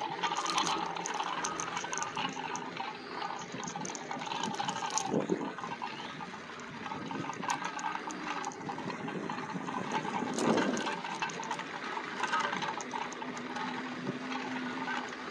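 Water lapping and splashing at the shoreline, a steady wash broken by many small splashes.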